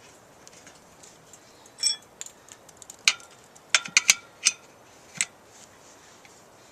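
Metal tools clinking and knocking against a motorcycle wheel during a tire change: scattered sharp clinks, a cluster of them around the middle, some ringing briefly.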